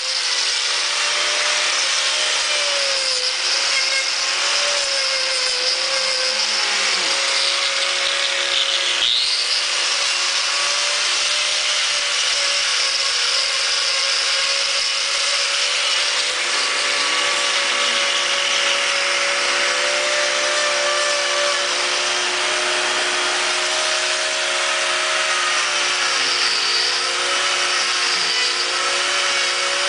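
Handheld angle grinder with a trimming disc running steadily and grinding away the horn of a cow's hoof. Its whine drops in pitch briefly a few times as the disc bites into the hoof.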